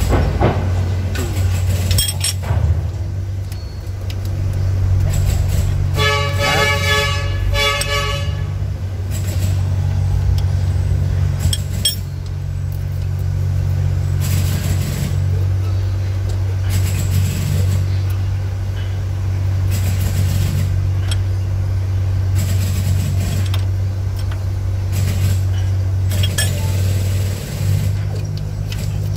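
A steady low engine hum from a running engine, under light metallic clicks from hand tools on the valve gear of an open diesel cylinder head. About six seconds in, a held pitched tone lasts roughly two seconds.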